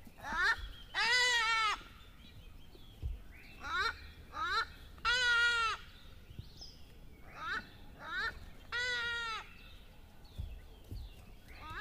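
An animal calling over and over: three long, pitched calls about four seconds apart, each led by two short rising calls.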